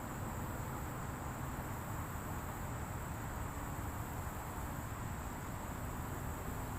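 Steady high-pitched chorus of insects buzzing without a break, over a low rumble of outdoor background noise.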